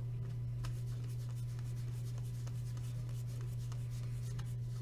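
Trading cards being handled and slid against one another: light rubbing with scattered faint clicks, over a steady low hum.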